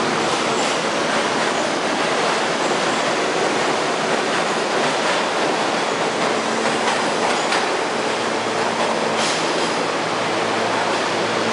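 R68A subway train pulling out of the station and running past on the platform track: loud, steady wheel-on-rail noise with a few sharp clacks from the wheels crossing rail joints.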